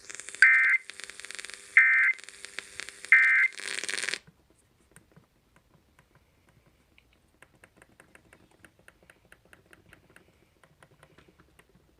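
Emergency Alert System end-of-message signal: three short, loud bursts of two-tone digital data (SAME) about 1.3 seconds apart over broadcast hiss. The hiss cuts off about four seconds in, leaving faint ticking.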